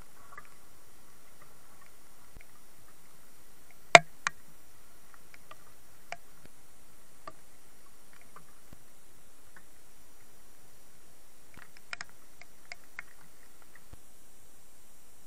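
Steady hiss of rain falling in woodland, broken by a few sharp ticks. The loudest is a pair of taps about four seconds in, and a small cluster comes near the end.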